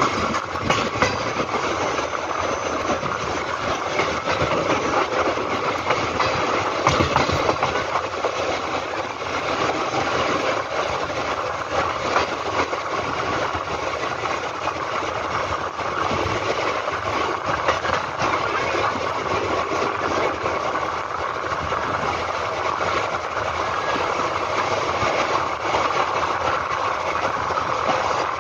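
Indian Railways express passenger coach running at speed, heard from its open window: a steady rush and rumble of wheels on rails, with frequent clicks and knocks from the wheels over the track.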